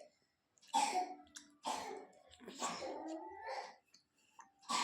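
A person coughing in about four separate bursts, with a throat-clearing quality.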